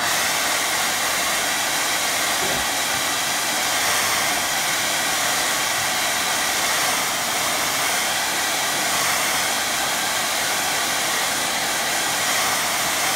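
Hair dryer running steadily, a continuous loud rush of blown air, used to dry wet watercolour paint.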